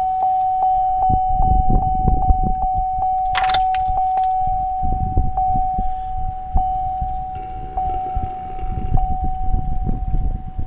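A steady electronic warning tone with a clicking tick on it. The ticks come quickly at first, then about one every second and a quarter. Under it, keys jangle and there is handling noise.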